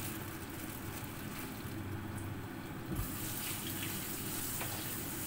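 Stovetop cooking on a gas burner: a pot bubbles steadily, then about three seconds in there is a knock and a steady sizzling hiss begins, typical of food going into hot oil.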